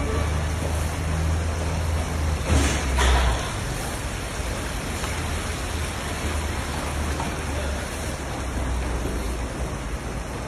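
A giant kazan of plov simmering, with a steady rain-like hiss over a low rumble. A louder rush of noise comes about two and a half seconds in.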